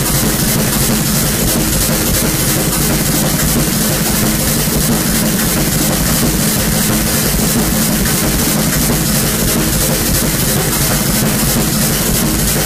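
Harsh noise music: a loud, unchanging wall of dense noise that fills the whole range, with a low rumble underneath.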